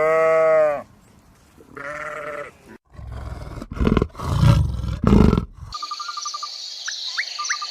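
Animal calls: a pitched cry at the start and a shorter one about two seconds in, then several loud rough calls. A little under six seconds in the sound cuts to something else, a high steady tone with quick regular ticking and a few short rising chirps.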